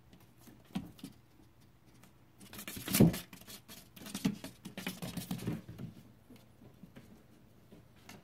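An animal scratching and scurrying inside a wall cavity: a few single taps, then a burst of scrapes and taps from about two and a half to five and a half seconds in, loudest near three seconds, then a few more faint taps.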